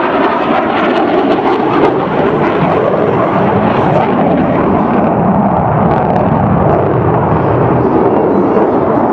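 Eurofighter Typhoon's twin EJ200 turbofan engines as the jet climbs steeply in a display: loud, steady jet noise.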